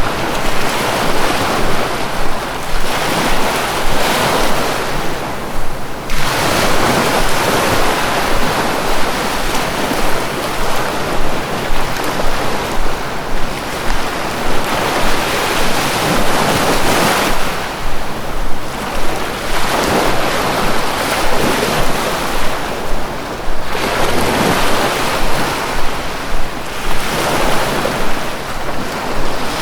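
Sea waves breaking and washing in, a continuous rushing surf that swells and eases every several seconds.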